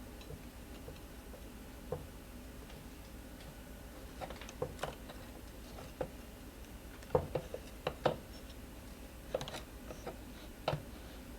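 Scattered light clicks and knocks of a scooter's rear wheel axle and hardware being handled and worked into the frame, with a small cluster of sharper knocks about two thirds of the way through.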